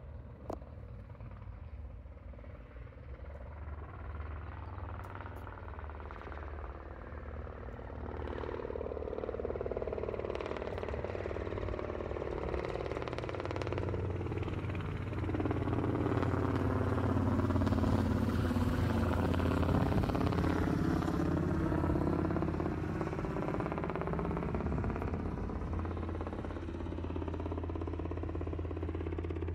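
1964 Mercedes-Benz 220b Fintail's inline-six engine idling steadily, getting louder from about eight seconds in and loudest around the middle.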